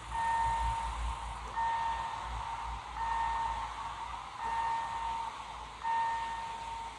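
Railway level crossing's warning sounder giving a repeated electronic beep, a steady tone on for a little under a second and off for about half a second, five times. It sounds while the crossing's red lights are lit and the barriers are down.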